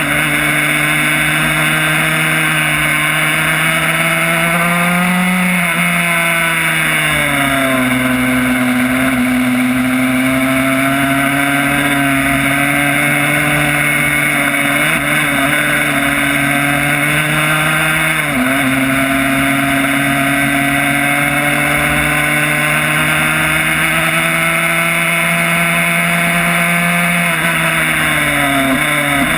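Yamaha YZ85 single-cylinder two-stroke engine in a 1994 Honda RS125 race bike running hard on track. Its pitch climbs slowly, falls over a second or so about six seconds in, drops sharply near eighteen seconds, then climbs again and falls near the end.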